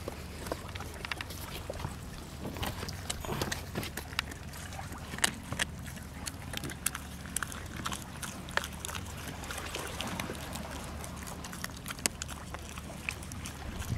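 Pit bull puppy chewing dried carcass with her mouth open: irregular crisp crunches, clicks and smacks throughout.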